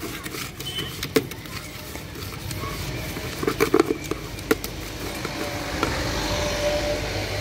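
Dry fried snack mix rustling and clicking as a hand stirs it in a plastic bowl, with a few sharp clatters a little past the middle. Road traffic swells near the end.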